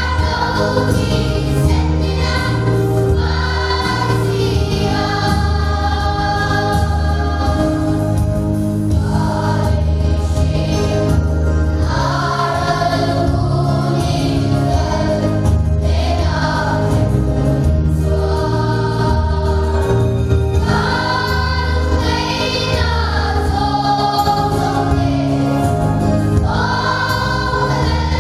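Children's choir with a few adult voices singing a gospel song over an instrumental accompaniment with a steady bass line.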